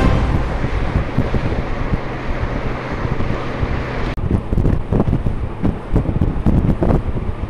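Wind noise rushing over the microphone of a motorcycle at road speed. About four seconds in it changes abruptly to heavier, gusty buffeting.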